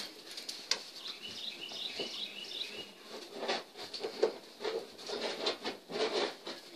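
A quick run of high-pitched chirping squeaks about a second in. It is followed by irregular crunching and patter of steps in packed snow, with scattered clicks, loudest a little past the middle.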